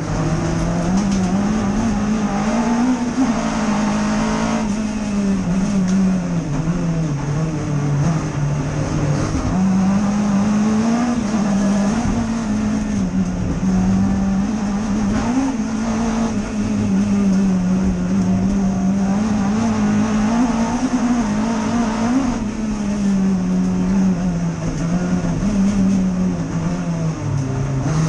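Rallycross Vauxhall Corsa's 2.5-litre XE four-cylinder race engine driven hard, heard from inside the stripped cabin, its note climbing and dropping again and again through the gears of its 3MO six-speed sequential gearbox.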